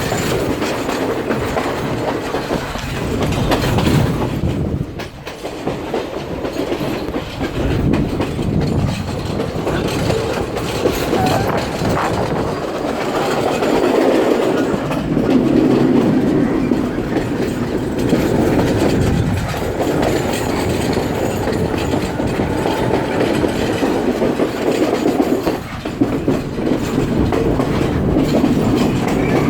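Moving passenger train: steady running noise of the wheels on the track, continuous throughout.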